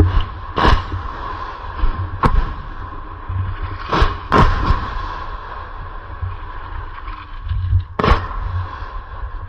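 Scattered gunshots: about five sharp single cracks at irregular intervals, two of them close together near the middle, over a constant low rumble.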